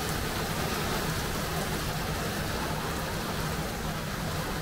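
Light rain falling: an even, steady hiss with a faint low hum beneath it.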